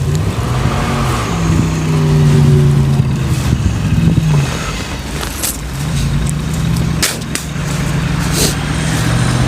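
Motor vehicle engine revving up and holding, then dropping back, about three times over, as a vehicle strains to move in deep snow.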